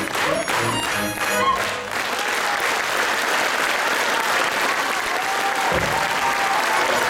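Lively folk dance music with a sharp, regular beat, then about two seconds in an audience breaks into applause that carries on over the music.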